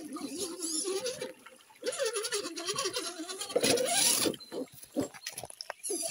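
Carson RC rock crawler's electric motor and gearbox whining as it crawls over rocks, the pitch wavering up and down with the throttle and loudest about two-thirds of the way in. A few short clicks and knocks come near the end.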